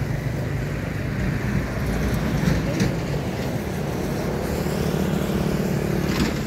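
An engine running steadily, with a few brief clicks.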